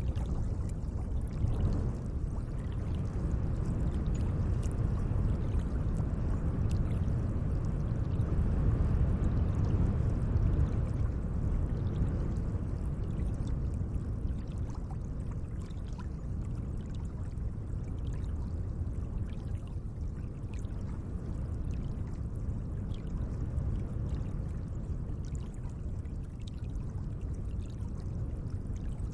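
Gentle lake water: a steady, low wash of moving water that slowly swells and eases again, with faint small splashy ticks over it.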